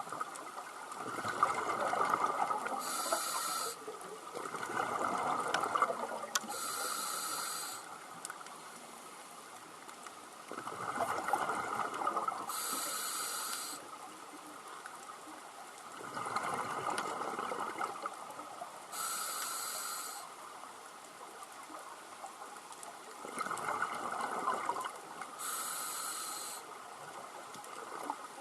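Scuba diver breathing underwater through a regulator: slow, regular breaths, each a few seconds of hissing and rushing bubbles, with quieter gaps between.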